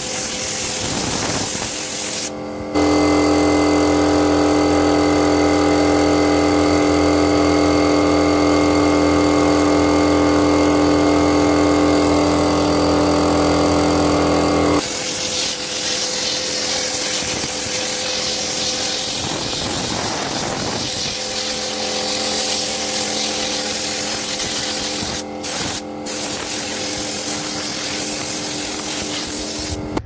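Compressed-air spray gun hissing steadily as it blows cleaning liquid through a car AC evaporator core, with brief breaks where the trigger is let go. A loud steady machine hum joins in from about three seconds in and stops about halfway, then comes back fainter.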